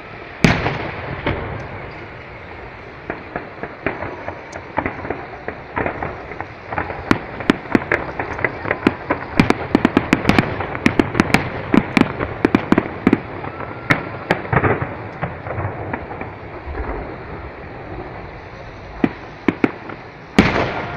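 Aerial fireworks bursting: a loud boom about half a second in, then a long run of rapid sharp cracks and pops, densest in the middle, and another loud boom near the end.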